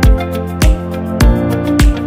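Background music with a steady beat: a low kick drum about every 0.6 seconds, four times, under sustained melodic notes.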